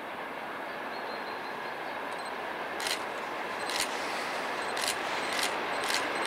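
TEP70 passenger diesel locomotive with its train approaching, its 16-cylinder diesel engine and the running gear growing steadily louder. From about halfway through, a few sharp clicks come from the wheels passing over the track.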